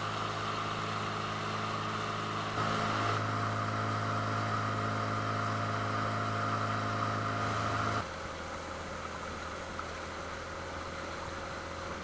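Small fishing boat's engine running steadily under way, an even drone. It gets louder about two and a half seconds in, then drops abruptly to a quieter, lower sound about eight seconds in.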